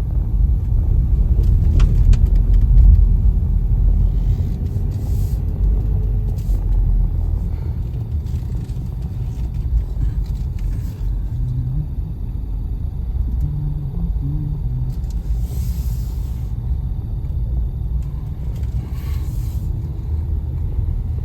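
Steady low rumble of a car driving, heard from inside the cabin, a little louder in the first few seconds.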